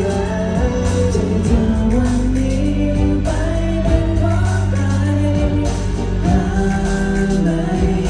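Thai pop song over an arena sound system: a men's vocal group singing over a full backing track with a steady beat, loud throughout.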